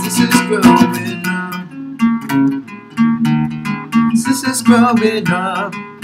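Steel-string acoustic guitar strummed in a steady rhythm. A man sings over it near the start and again about four to five seconds in.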